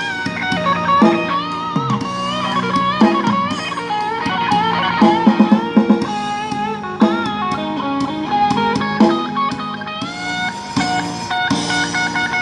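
Instrumental break of a song: an electric guitar plays a bending, sliding lead melody over bass and drum kit, with a quick drum fill about five seconds in.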